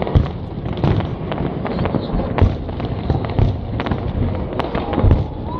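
Fireworks display: an irregular run of sharp bangs and crackles from bursting shells over a continuous background of further pops, with the loudest reports just after the start and about two and a half seconds in.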